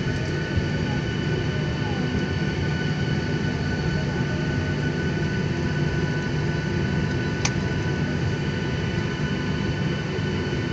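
Cabin noise of a jet airliner taxiing, heard inside the cabin at a window seat over the wing: a steady hum with several constant whining tones from the engines running at taxi power. A single short click comes about seven and a half seconds in.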